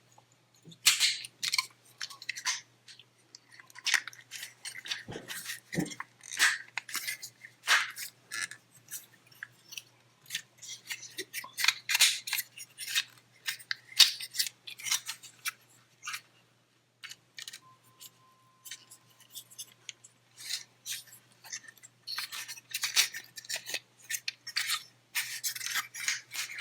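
Plastic action figure being handled and transformed: irregular clicks, snaps and scrapes of hard plastic parts being folded, rotated and pressed into place, with a brief quiet spell about two-thirds of the way through.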